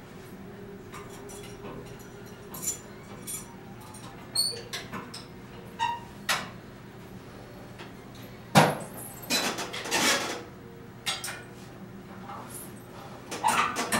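Clicks, clanks and knocks of cable handles and clips on a rod-resistance home gym as it is handled and pulled, scattered irregularly with the loudest knock about eight and a half seconds in and a burst of rattling just after. A steady low hum runs underneath.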